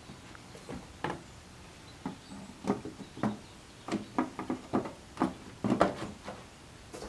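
A dozen or so irregular light knocks and clicks, bunched in the second half, from hands handling the model airplane as the plastic canopy hatch is fitted onto the balsa fuselage.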